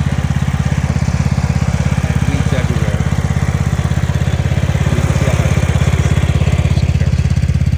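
A machine running steadily: a loud, low hum that pulses fast and evenly, like a small engine idling.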